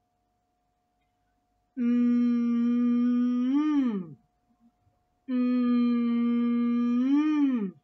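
A woman's voice humming a long "mmm", the phonics sound of the letter m, twice: each held at a steady pitch for about two seconds, then rising briefly and dropping away.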